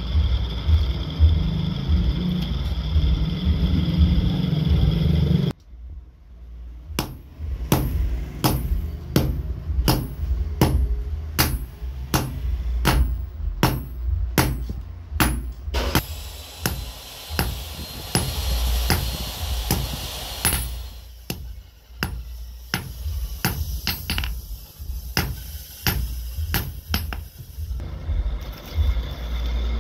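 A long run of evenly paced hammer blows on a red-hot file held with tongs on a steel block anvil, roughly one to two strikes a second. A steady low rumble with a faint high whine comes before the blows and returns near the end.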